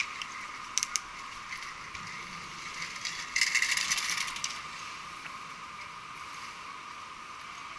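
Bicycle ticking and rattling over a steady hiss: two sharp clicks about a second in, then a loud burst of rapid ticking and rattling for about a second, like a freewheel ratchet while coasting.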